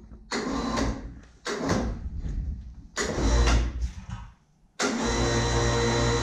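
Electric hoist motor running in four short bursts, the last about two seconds long, as it winches a jet ski hull up off its stand.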